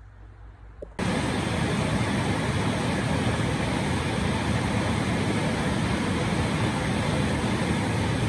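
Heavy rain pouring down, a steady, even hiss that starts abruptly about a second in.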